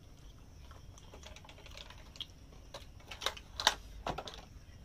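Light clicks and taps from a paper lunch box being handled while eating by hand, with a cluster of sharper clicks between about three and four seconds in.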